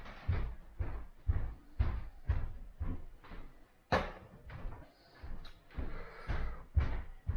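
Footsteps on a wooden floor, a steady walking pace of about two steps a second, with one sharp knock about four seconds in.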